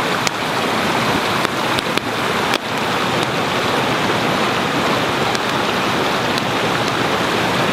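Small forest stream rushing over rocks, a steady wash of water, with a few sharp clicks in the first three seconds.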